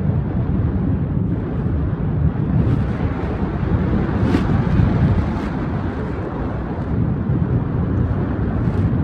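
Wind rushing steadily over the microphone of a paraglider in flight, a low buffeting rumble.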